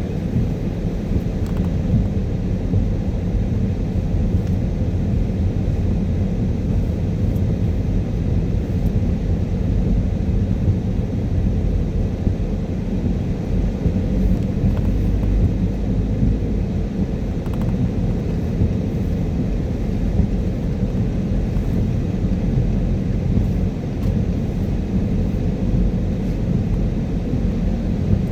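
Steady low rumble of a car driving on a wet road in the rain: tyre and road noise with the engine underneath.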